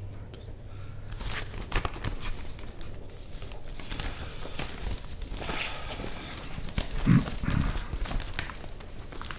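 Broadsheet newspaper rustling and crackling as its pages are turned and folded, with a brief low thud about seven seconds in.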